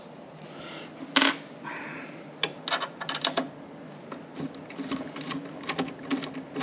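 A hand screwdriver turning out the small screws that hold the 3D printer's metal power supply to its frame: scattered light metal clicks and taps, with one sharper click about a second in.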